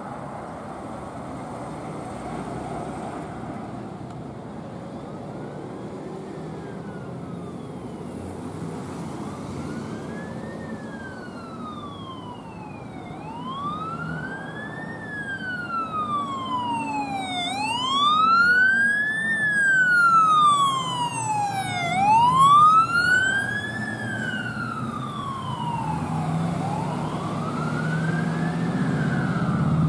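Fire engine's siren on a wail, in slow rising and falling sweeps about one every four and a half seconds, growing louder as the truck approaches and loudest about two-thirds of the way through. The truck's engine rumble comes up near the end as it passes close.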